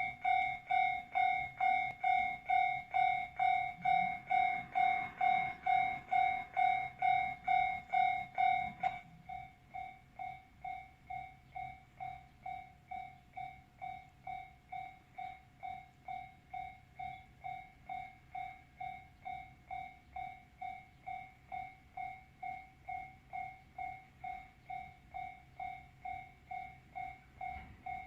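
Japanese railway level-crossing warning bell ringing, a steady ding about twice a second. About nine seconds in it drops suddenly to a noticeably quieter level and keeps ringing.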